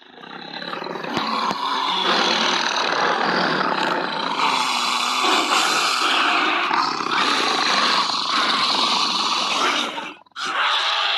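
Monster roar sound effect: one long, rough, noisy creature roar that swells in over the first couple of seconds and holds loud, breaking off for a moment near the end.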